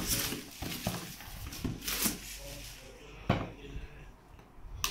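Cardboard router box being handled and turned over: irregular rustling and scraping with a few knocks, the sharpest about three seconds in, then quieter.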